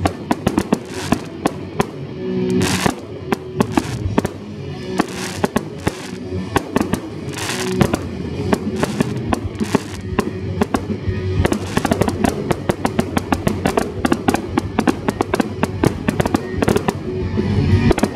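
Fireworks display going off in rapid, dense bangs and crackles, with a few longer hissing bursts, over music playing along with the show.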